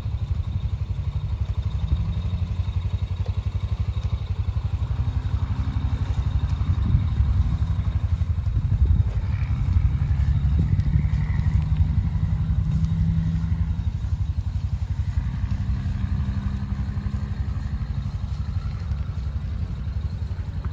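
An engine idling steadily, a low rhythmic rumble that grows a little louder midway.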